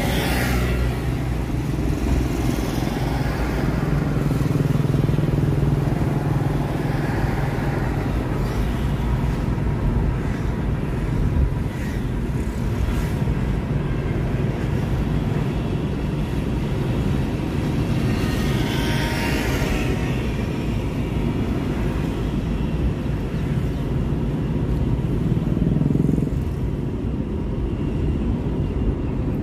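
Car road noise heard from inside the cabin while driving: a continuous low rumble of engine and tyres, with two louder rushes, one at the start and one about two-thirds through.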